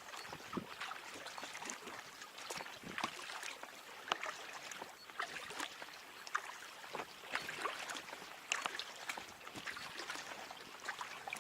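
Packraft paddling: paddle blades dipping into the water with small, irregular splashes and drips trickling off the blades.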